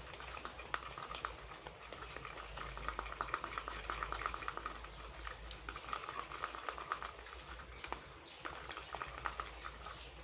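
Screen-printing ink being stirred in a small plastic cup, with fast, repeated scraping and clicking of the stirrer against the cup as red is mixed into white ink. A low steady hum runs underneath.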